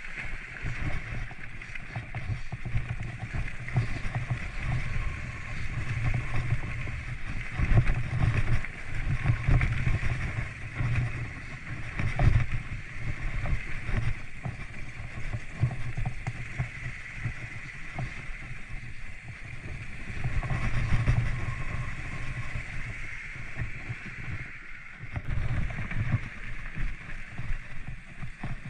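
Mountain bike riding over a rough trail: a steady, uneven rumble with frequent knocks and rattles from the bumps.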